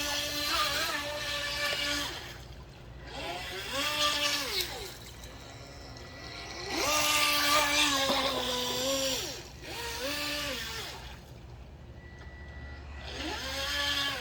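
Motor of an H120 RC speedboat whining in repeated throttle bursts: the pitch climbs, holds briefly and drops back about five times, with quieter gaps between.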